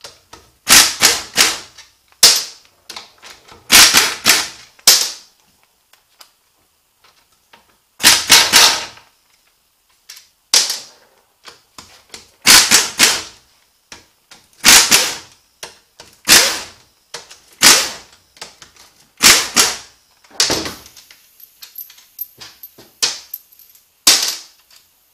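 Pneumatic impact wrench hammering in about a dozen short bursts, each under a second, as it runs bolts out of a 09A automatic transmission case during teardown.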